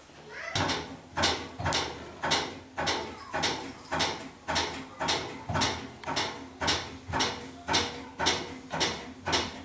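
Regular rhythmic scraping strokes, about two a second, each starting sharply and fading quickly, like a tool worked back and forth by hand.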